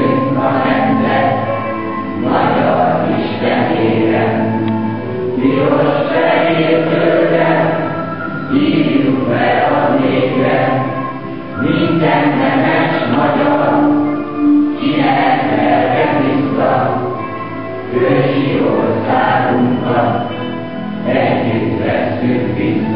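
A children's choir singing together in phrases with short breaks between them.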